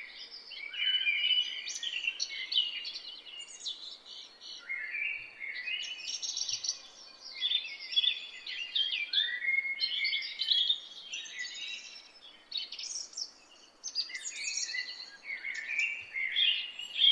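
Several birds singing and chirping at once in a chorus of rapid trills and short calls, with a brief lull about two-thirds of the way in, over a faint steady background hiss.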